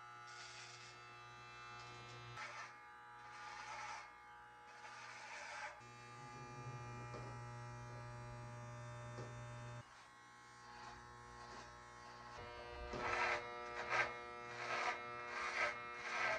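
Electric hair clippers buzzing steadily while trimming a beard, with louder brief bursts of hiss every second or so near the start and again near the end.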